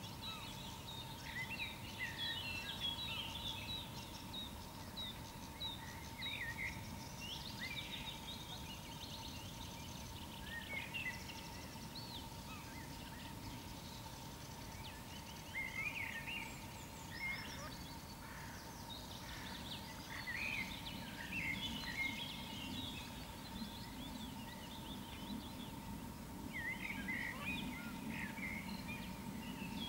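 Many small birds singing and calling at once, their quick chirps and short song phrases overlapping, over a low steady rumble and a faint steady tone.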